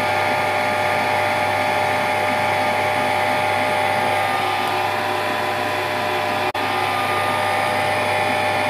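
Electric stand mixer running at a steady speed, its beater whipping egg, sugar and oil batter in a stainless-steel bowl: an even motor whine. The sound drops out for an instant about two-thirds of the way in.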